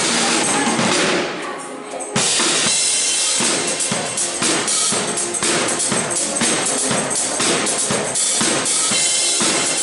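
Pop song played by a band with a steady drum-kit beat of bass and snare drum. About a second in the music thins out briefly, then comes back in full with the drums just after two seconds.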